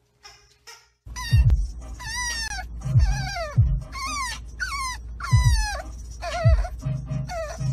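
French bulldog puppy whining in a car, starting about a second in: a string of short, high-pitched whines, each falling in pitch, one or two a second, over the car's steady low rumble.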